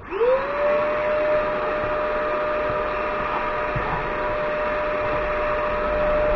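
Shop vacuum switched on: its motor spins up to a steady whine within half a second and runs on evenly, ready to pull dust from a mitre saw.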